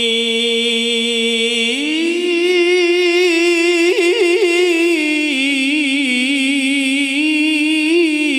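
A man reciting the Quran in the melodic tilawah style into a microphone, a single unaccompanied voice on long held notes. His pitch steps up about two seconds in, he runs quick ornamental turns around four seconds, and then holds a wavering, vibrato-laden line.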